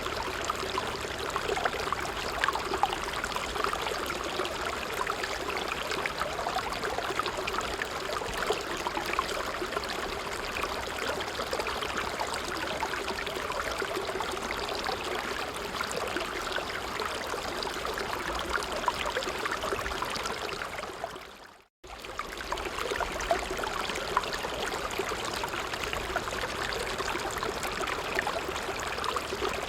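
Creek water flowing steadily. About two-thirds of the way in, it fades to silence and then starts again abruptly.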